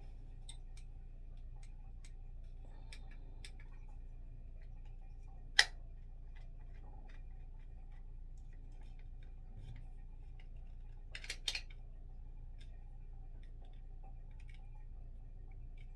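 Small plastic clicks and taps from handling an extendable tripod with a smartphone holder: one sharp click about six seconds in and a quick run of clicks about two-thirds of the way through, over a steady low hum.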